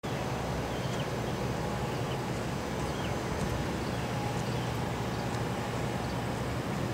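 Steady low rumble of highway traffic, with a few faint short high chirps over it.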